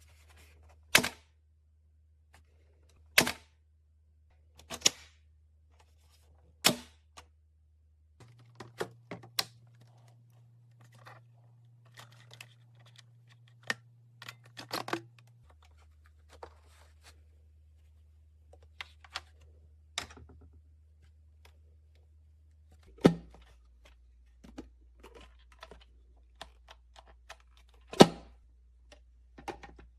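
Sharp single clicks and knocks every few seconds, some louder than others, over a faint low hum that shifts pitch abruptly several times.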